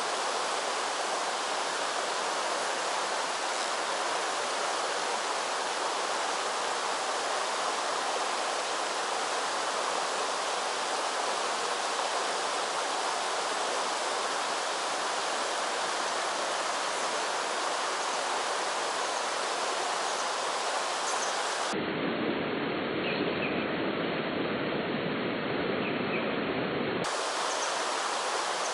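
Mountain stream water running over rocks, a steady rush. For about five seconds in the second half the rush turns duller and fuller in the low end.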